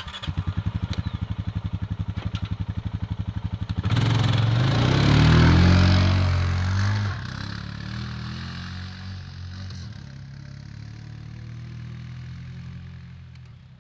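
Quad bike engine idling with a rapid, even beat, then revving up about four seconds in as the quad pulls away, its pitch rising before the sound fades steadily as it drives off.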